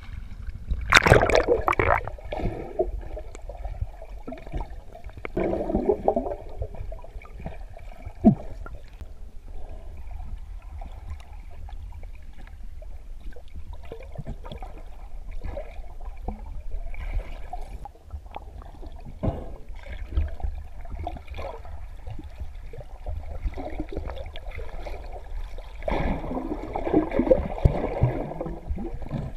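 Lake water sloshing and gurgling around a camera held at the surface and dipped under water, over a steady low rumble. Louder splashing comes about a second in, again around six seconds, and near the end.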